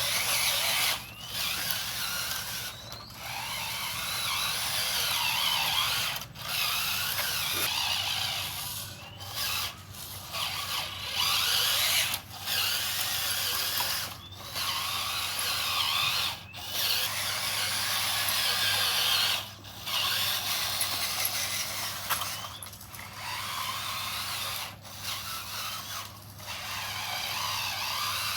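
Small electric motors and plastic-and-metal gearing of RC construction models whirring and grinding as they work, in stop-start spells broken by short pauses every second or two, the pitch rising now and then as a motor speeds up.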